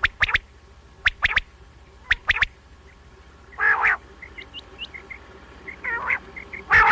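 Common quail calling: three quick sets of three sharp, liquid notes (the 'wet-my-lips' song), each group answered later by a short hoarse, wheezy note, with faint small chirps in the gaps.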